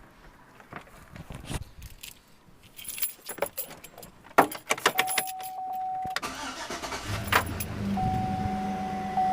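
Keys jangling and clicking, then a steady electronic chime tone, then about seven seconds in the Chevy Tahoe's V8 starts and settles into a steady idle while the chime sounds again.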